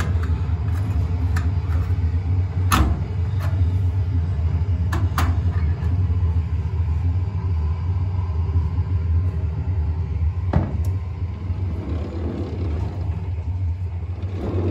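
Steady low rumble inside a standing passenger train carriage, with a few sharp clicks and knocks.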